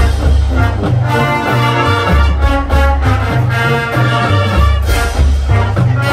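Marching band playing: brass (trumpets and trombones) over a loud stepping bass line, with drum hits keeping the beat.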